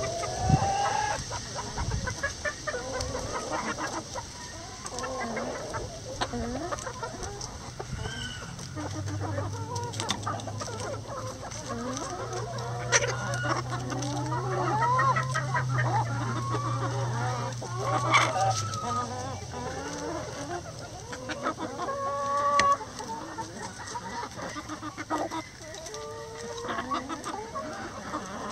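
A flock of backyard chickens clucking and calling all around as they feed, with many short overlapping calls. A low steady hum runs underneath from about a third of the way in until about two-thirds through.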